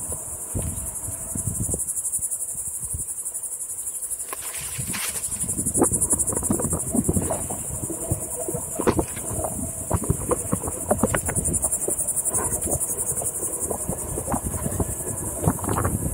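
A steady, high-pitched insect chorus buzzing throughout, over low wind rumble and scattered knocks from a Onewheel rolling over a bumpy sandy trail.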